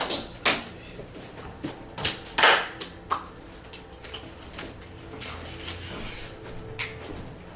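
Scattered knocks, clicks and rustles of things being handled, the loudest about two and a half seconds in.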